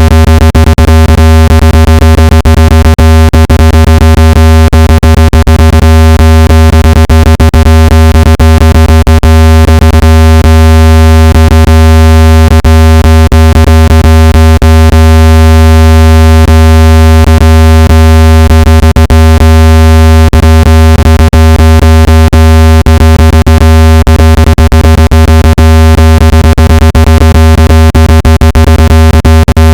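Synthesized speaker-cleaning tone, a water-eject sound meant to vibrate water and dust out of a phone speaker: a steady, very loud low tone with a stack of overtones above it and frequent brief crackles through it.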